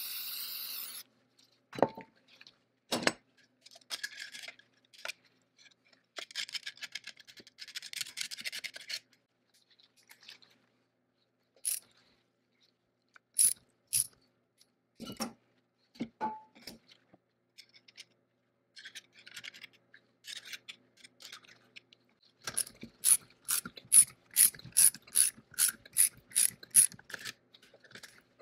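Socket ratchet wrench clicking as it turns a fastener inside a cast metal motor housing, with scattered clinks and knocks of tools on metal. Near the end comes a steady run of about three sharp clicks a second. A brief hiss sounds at the very start.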